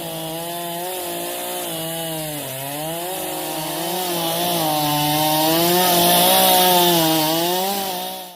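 Chainsaw running and cutting through wood, its engine pitch sagging and recovering several times as it bogs under load. The cutting noise grows louder toward the end, then the sound cuts off suddenly.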